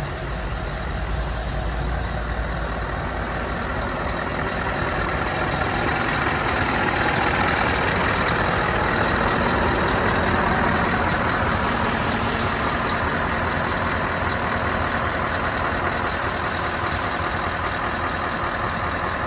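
Scania R500 V8 diesel truck engine idling steadily. It grows a little louder partway through and eases off near the end.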